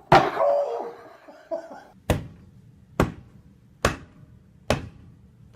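A brief laugh or exclamation at the start, then a series of sharp knocks, evenly spaced about one every 0.85 seconds.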